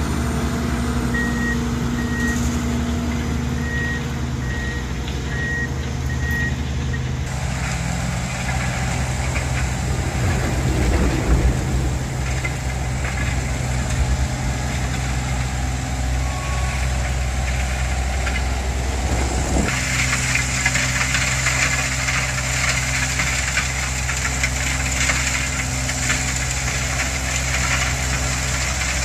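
Diesel engines of CSX rail maintenance-of-way machines running, with a series of short warning beeps in the first several seconds. About two-thirds through, a loud steady hiss joins the engine noise as the track machine works along the rails.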